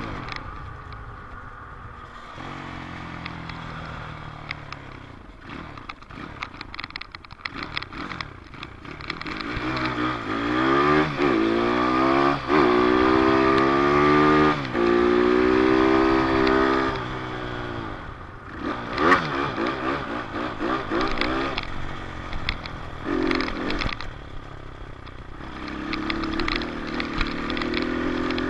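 Dirt bike engine accelerating and easing off over and over, its pitch climbing in steps as it shifts up through the gears. It runs quieter at the start and again shortly before the end, then picks up once more.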